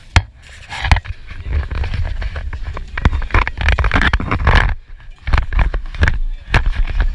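Close handling noise from a small camera being picked up and moved about on a table: a string of sharp knocks and rubbing over a heavy low rumble.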